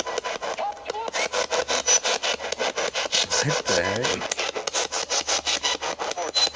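Night insect chorus, a loud steady rasping pulse repeating about six times a second, with a faint brief pitched sound about halfway through.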